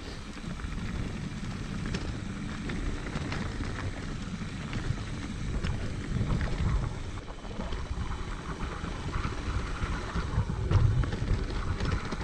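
Wind buffeting the microphone over the rolling noise of a mountain bike's tyres on a dirt trail, with scattered light clicks and rattles from the bike. The low rumble swells briefly about eleven seconds in.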